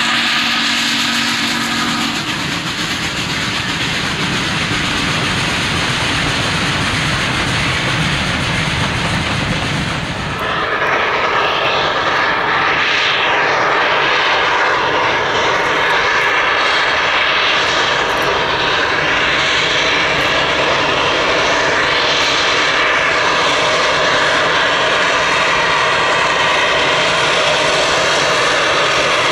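Baldwin 2-8-0 Consolidation steam locomotive #734 working hard with a freight train, its exhaust a heavy, steady rush with the train rolling behind. A brief steady tone sounds in the first couple of seconds, and the sound changes abruptly about ten seconds in.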